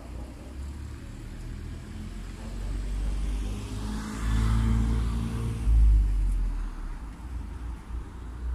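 A small hatchback car driving past close by: engine and tyre noise swell to a peak about halfway through, then fade away.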